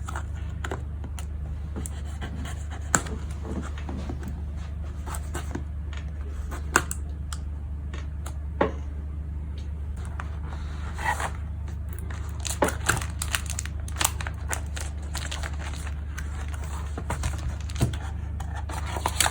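Unpacking a boxed computer keyboard: scattered clicks, scrapes and rustles of cardboard and packaging, busier in the second half, over a steady low hum.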